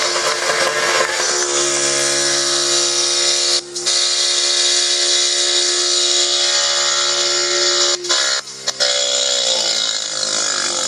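Portable fire pump's small petrol engine running flat out at a steady high pitch, with a heavy hiss. Its note cuts out briefly twice and settles lower near the end, as the load on the pump changes.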